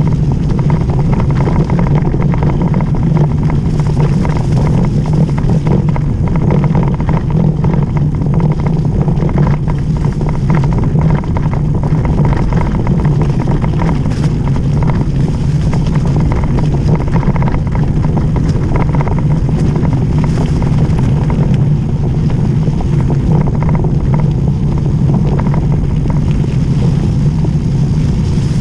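Steady, loud wind buffeting the microphone and tyre rumble on wet gravel and snow as a mountain bike descends at speed, with small knocks and rattles from the rough track.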